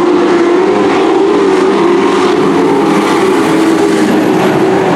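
Engines of a field of dirt-track stock trucks running hard under racing, a loud steady drone whose pitch wavers a little as they lap.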